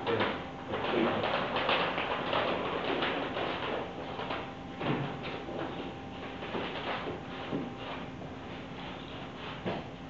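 Irregular rustles, shuffles and light knocks, busy at first and thinning out toward the end, with one sharper knock near the end, over a faint steady electrical hum.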